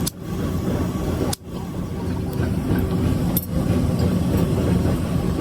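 Steady low rumble of workshop machinery running, broken by sudden brief drop-outs near the start, about a second and a half in, and again about three and a half seconds in.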